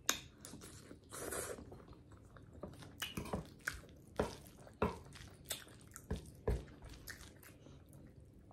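Close-miked chewing and lip smacking while eating chicken Alfredo ramen noodles: a string of irregular wet clicks and smacks.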